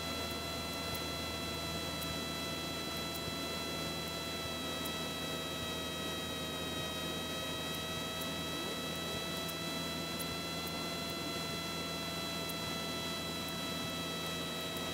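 Steady cabin drone of a Cessna 172 in cruise flight, engine and propeller running evenly, with a steady high whine over it.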